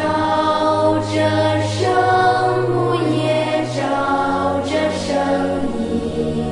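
Choir singing a slow communion hymn in long, held notes over a steady low accompaniment.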